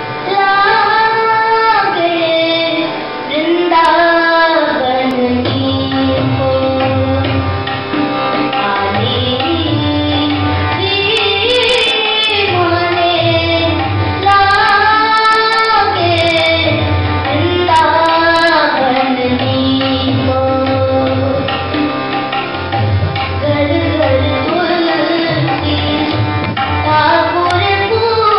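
A boy singing a bhajan in Indian classical style, his voice gliding through ornamented phrases. He is accompanied by harmonium and a tabla keeping a steady rhythm.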